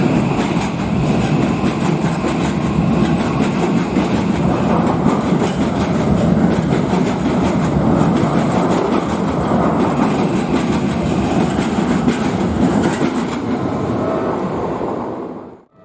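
Keikyu electric train passing through a level crossing, with a steady heavy rumble and rapid repeated clacks of wheels over rail joints. A level-crossing warning bell rings faintly underneath, and the sound cuts off abruptly near the end.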